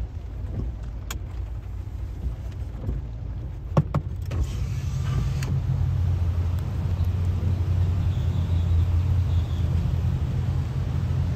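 Car engine and road noise heard inside the cabin: a steady low rumble that grows louder from about four to five seconds in as the car gets moving. Just before that there are two sharp clicks.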